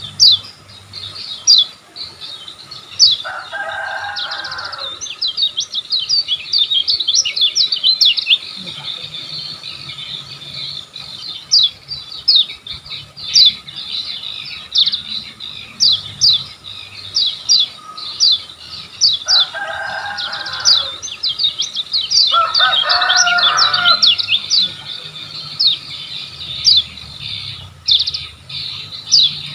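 Kecial kuning, a small white-eye, singing a long run of rapid, high, downward-slurred chirps. The song is cut across three times by a lower, harsher call.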